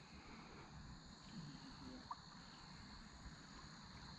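Near silence outdoors with a faint, steady high-pitched drone of insects, with one tiny chirp about two seconds in.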